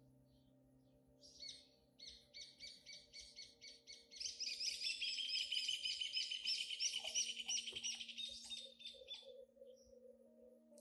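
Birds chirping in a rapid run of high, repeated notes that grows louder about four seconds in and fades near the end.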